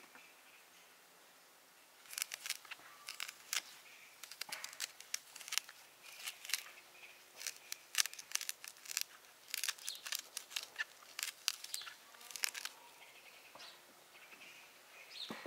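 A metal teaspoon scraping and gouging the seeds and hard core out of a halved raw quince: a quick, irregular run of crisp scrapes and clicks that starts about two seconds in and stops a few seconds before the end.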